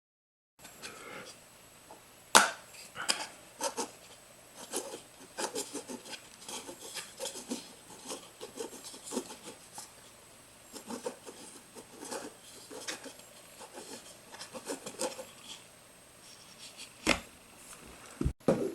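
Hollow 3D-printed plastic BB-8 model rolling and rocking on its internal counterweight: irregular light clicks, knocks and rubbing, with a sharp knock about two seconds in and two more near the end.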